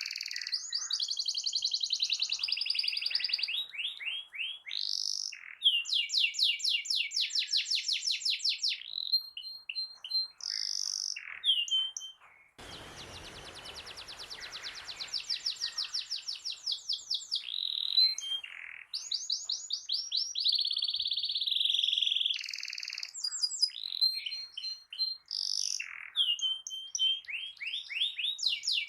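Domestic canary singing a long, unbroken song of fast trills and rolls, switching to a new phrase every second or two. A hiss sets in under the song about halfway through and fades over the next few seconds.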